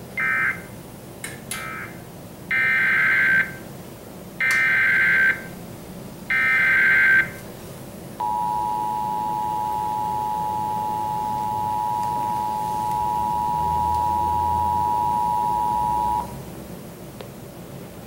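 Emergency Alert System signal from a Sage EAS ENDEC sending a test tornado warning: two short data chirps near the start, then three loud one-second bursts of warbling SAME header data about two seconds apart, followed by the EAS two-tone attention signal, a steady pair of close tones held for about eight seconds before cutting off.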